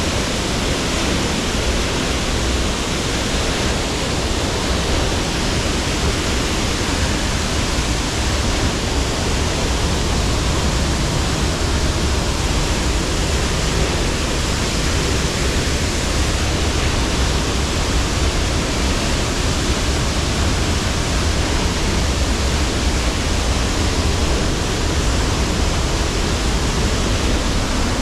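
Cascading waterfall: a loud, steady rush of falling water that does not change.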